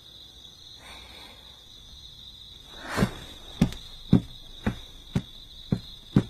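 A short rush of noise, then six sharp knocks evenly spaced about two a second.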